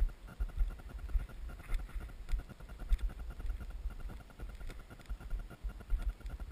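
Carbon Core Y6 coaxial hexacopter in flight, heard from its onboard camera: propeller wash buffets the microphone in gusty low rumbles over a steady high hum from the brushless motors and props.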